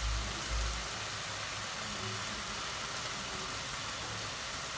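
Garlic and grated tomato sizzling steadily in hot oil in a cooking pan.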